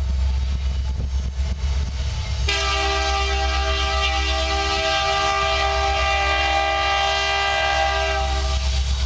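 Diesel freight locomotive's air horn sounding one long blast of about six seconds, several notes at once, starting about two and a half seconds in. Under it is the low rumble of the approaching train.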